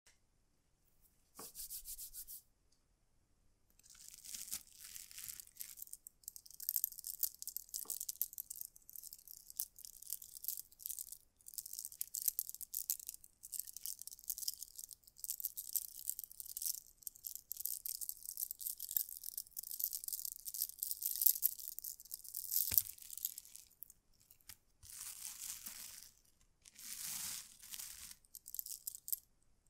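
A stack of beaded bracelets and metal wrap bracelets rattled and rubbed together in the hands. The beads make a dense, fast, high-pitched clicking, broken by a few brief pauses.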